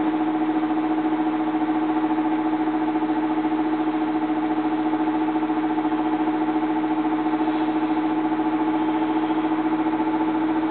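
Aoyue hot-air rework station blowing hot air at about 350 degrees while reflowing solder balls onto a GPU: its blower gives a steady hum with an even air hiss.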